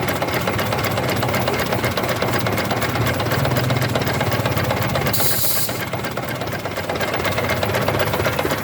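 Water-cooled Chinese diesel engine driving a compressor, running steadily with a rapid diesel knock. A short hiss comes about five seconds in.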